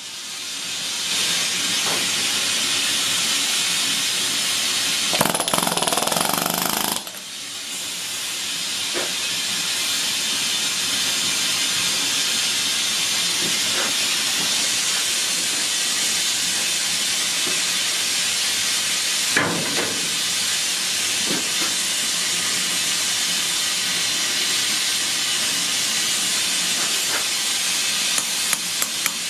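Husky pneumatic air hammer running, a loud, steady hissing chatter from its exhaust air and the rapid hammer blows, with a louder stretch around five to seven seconds in, then a short drop before it builds back up.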